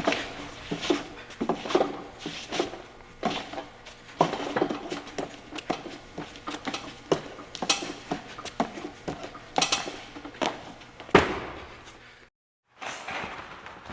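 Fencing blades clashing: a quick, irregular run of metallic clinks and clicks over a faint low hum, with one louder strike about eleven seconds in, cutting off suddenly near the end.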